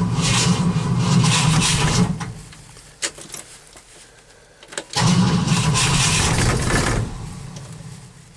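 A starter motor cranks a cold engine in two bursts of about two seconds each, and the engine does not catch. Each burst fades off afterwards, and a couple of short clicks come between them: repeated failed attempts at a cold start in below-zero weather.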